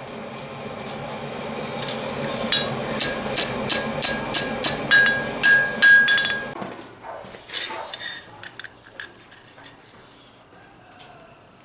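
Hand hammer striking a steel strip on a steel anvil: a quick run of about a dozen ringing blows, roughly three a second. After that come a few lighter clinks of steel pieces being set down and handled on the anvil.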